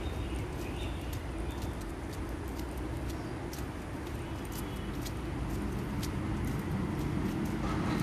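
Footsteps on a paved path, heard as a run of short clicks, over a steady low rumble, with a few faint bird chirps.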